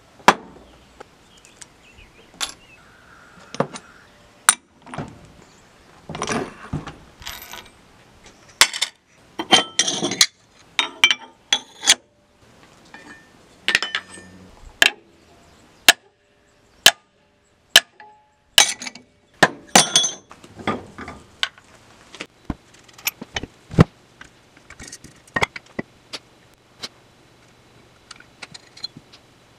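Hand tools working on metal motorcycle engine parts: irregular sharp metallic clinks, knocks and hammer taps on a steel bench vise, some ringing briefly, in short bursts with pauses between.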